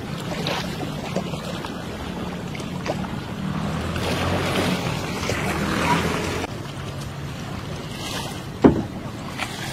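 Outdoor river ambience with wind buffeting the microphone over a steady low hum. A single sharp knock comes near the end.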